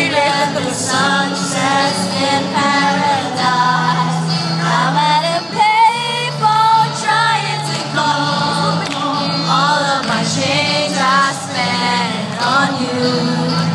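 Pop music with singing: sung vocal lines over a steady bass note.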